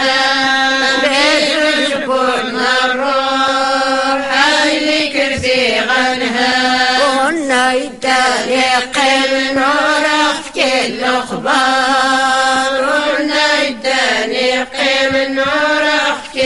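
Women's voices singing an Islamic devotional praise chant (madih) in long held, gliding melodic lines, with only brief pauses for breath.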